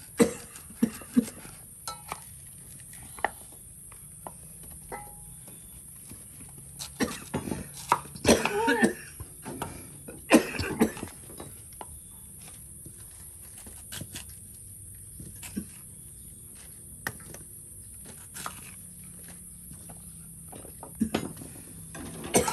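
Large knife cutting and peeling root tubers against a small wooden board: scattered sharp knocks and short scraping cuts. A couple of brief vocal sounds come near the middle.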